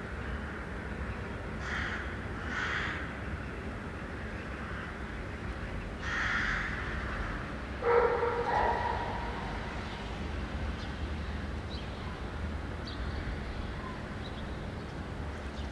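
Steady low rumble of a vehicle rolling over brick street paving, with four short barks, most likely from a dog. The loudest bark comes about eight seconds in.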